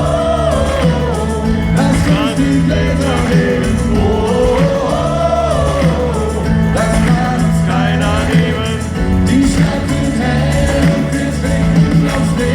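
Live pop-rock band music with sung vocals over a steady low bass and drums.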